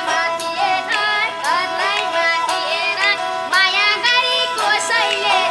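Background music: a high-pitched sung melody with ornamented, sliding notes over steady held tones and a light regular beat.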